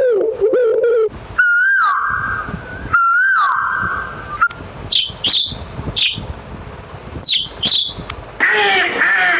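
Bird calls: two long whistled calls that waver at first and then slide down, followed by a run of short, sharp calls falling in pitch. At the very start, the tail of a goat bleating.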